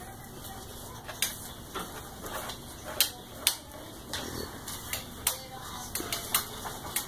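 Irregular sharp taps and clicks, about a dozen, as a paintbrush strikes the canvas and the paints during fast painting.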